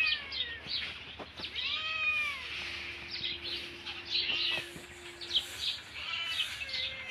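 Domestic cat meowing at a person, begging for food because it is hungry: a falling call right at the start and a longer, arched meow about two seconds in.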